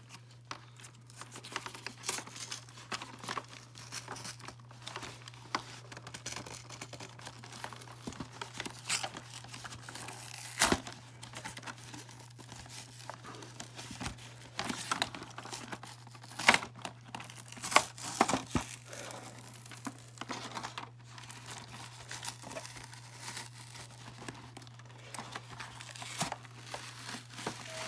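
Cardboard and paper packaging being pulled apart and torn off a toy playset by hand: irregular crinkling and tearing with a few sharper snaps.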